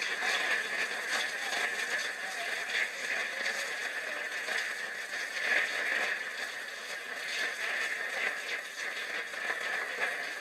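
Audience applauding at length, a dense, even patter heard through an old, band-limited recording.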